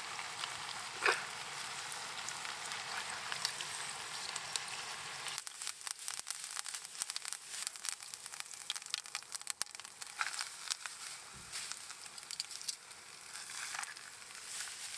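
Food sizzling as it fries, a steady hiss that changes about five seconds in to dense popping and crackling.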